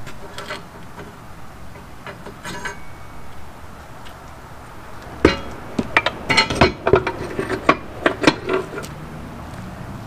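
A run of sharp metallic clanks and clinks as a SnowSport HD utility plow blade and its frame are lifted and knocked against the truck's front hitch mount. A few light clicks come first; the loudest knocks start about five seconds in and run in an uneven cluster for about four seconds.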